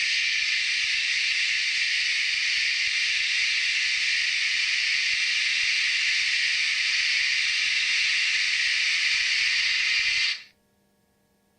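Steady steam hiss from the sound decoder of an Arnold model BR 41 steam locomotive; it cuts off abruptly about a second before the end.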